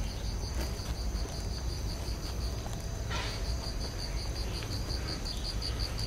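A cricket chirping in a steady, even pulse, about five chirps a second, with a short break about halfway through. A low steady rumble runs underneath.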